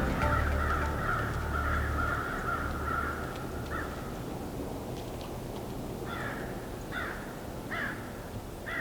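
Music dies away in the first three or four seconds. From about six seconds in, a bird calls outdoors in short, evenly spaced calls, about one a second.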